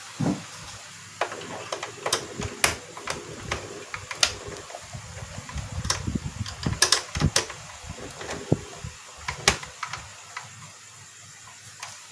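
Irregular clicks and knocks of hands and tools on a projector's plastic casing as it is taken apart, over a steady faint hiss.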